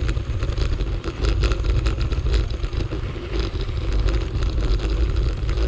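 Bicycle tyres rolling over a gravel path, with a dense crackle of grit and small bumps and a steady low wind rumble on the microphone.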